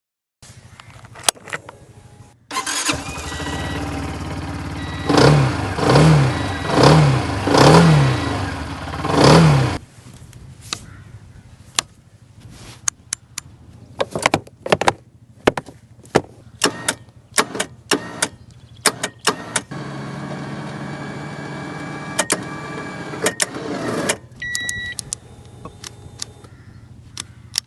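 X-Wolf 300cc ATV engine starting, idling briefly, then revved in five quick blips before it is shut off. A string of scattered sharp clicks and knocks follows.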